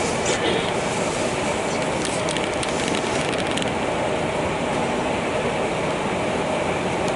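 Steady running noise heard from inside a moving vehicle, with a short run of faint crackling clicks about two seconds in.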